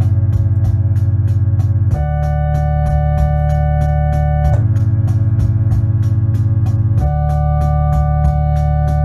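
Yamaha Electone organ playing slow held chords that change about every two and a half seconds, over a steady fast ticking beat.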